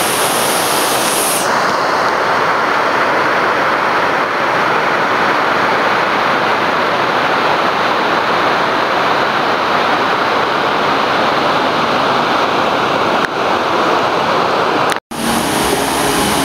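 Water pouring down a stepped concrete spillway: a steady, loud rush. It breaks off for a moment near the end.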